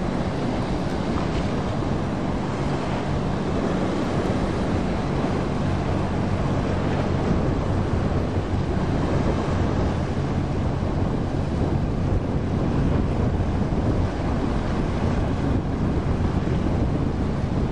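Large sportfishing yacht running past at speed: a low, steady engine hum under the rushing wash of its wake and the sea, with wind on the microphone. The engine hum is plainest in the first half and fades later, leaving mostly the water and wind noise.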